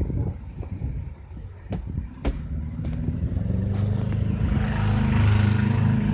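A couple of sharp clicks, then a motor vehicle's engine from about two seconds in, growing steadily louder as it draws near.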